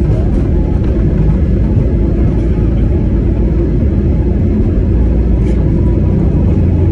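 Airbus A320neo on its takeoff roll, heard from inside the cabin: the engines at takeoff thrust and the rumble of the runway make a loud, steady roar, heaviest in the low end.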